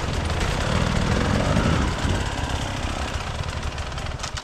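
Enduro dirt bike engine running hard under throttle on a trail, its rough note getting gradually quieter and dropping away near the end.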